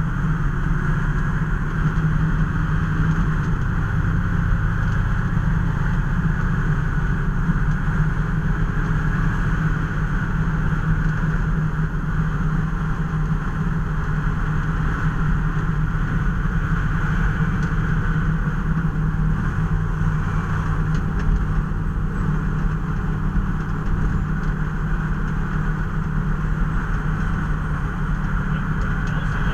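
Steady engine and road noise of a vehicle on the move, an even drone with no siren.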